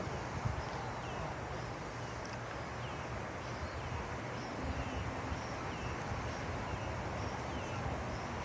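Outdoor ambience: a steady low hum and hiss, with faint, short, high chirps that fall in pitch, recurring about once a second.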